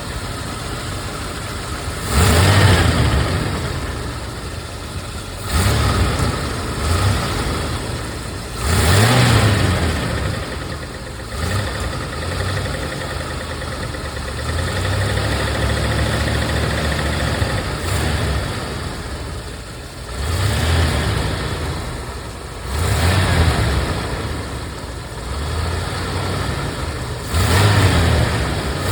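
Rolls-Royce Silver Wraith II's 6.75-litre V8 engine running with a rattle, blipped from idle several times so that the revs rise and fall between steadier stretches.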